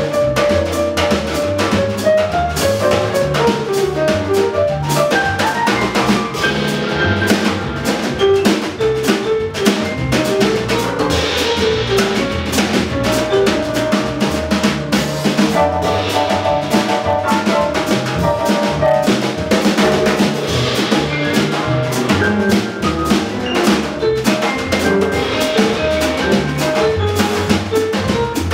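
Live jazz trio of Steinway & Sons piano, upright bass and drum kit playing a bossa nova tune, the piano's melodic line over a walking bass and steady drum pattern.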